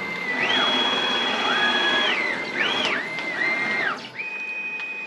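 Onefinity Journeyman X-50 CNC's stepper motors whining as the machine is jogged with its joystick at a mid speed setting. Each move starts with a rising whine and ends with a falling one. There are several moves, with two whines overlapping in the middle.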